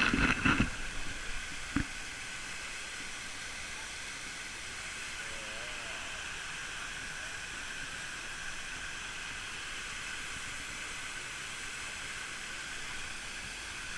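Steady rushing hiss of a waterfall, even and unchanging, with a short burst of louder sound and a single click in the first two seconds.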